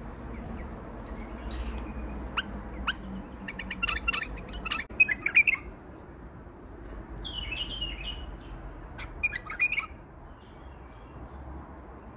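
Male white-eared bulbul singing in bursts: short chirps and quick warbled phrases in several separate groups with pauses between them.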